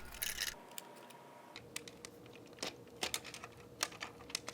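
Scattered light plastic clicks and taps from handling the Aiper Smart pool vacuum's housing while its top cover is taken off.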